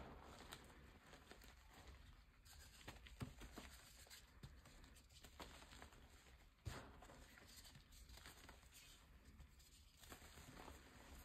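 Faint crumbling and crackling of reformed gym chalk being squeezed and broken between fingers, with a few sharper crunches scattered through.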